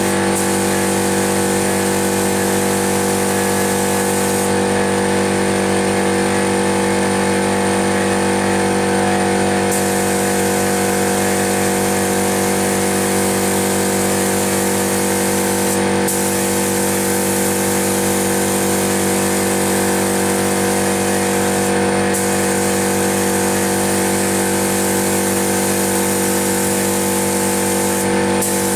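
Compressed-air paint spray gun hissing as it lays a coat of paint, over the steady running hum of an air compressor. The hiss cuts out briefly three times in the second half as the trigger is released between passes.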